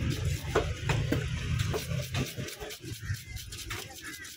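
Knife scraping the scales off a spotted grouper lying on a wooden chopping stump: quick, uneven rasping strokes, several a second. A low hum runs underneath and stops near the end.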